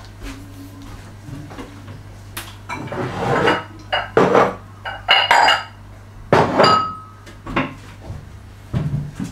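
Kitchen crockery clattering: a run of knocks and clinks as dishes and a ceramic bowl are fetched and handled, in about seven short clusters starting a couple of seconds in, one clink leaving a brief ringing tone. A steady low hum sits underneath.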